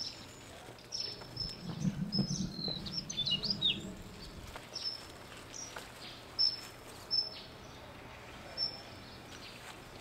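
Small birds chirping repeatedly with short high chirps, plus a quick run of gliding calls a couple of seconds in, over a steady outdoor background hush; a low rumble sits under the first few seconds.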